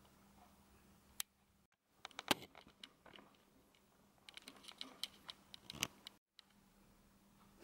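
Scattered light clicks and taps in a small quiet room, in a quick cluster about two seconds in and a denser run between about four and six seconds, over a faint steady hum. The sound drops out to dead silence twice, briefly.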